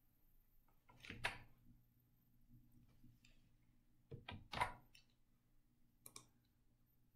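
Near silence broken by a few faint clicks of a computer mouse: one about a second in, a quick cluster around four and a half seconds in, and a small one near six seconds.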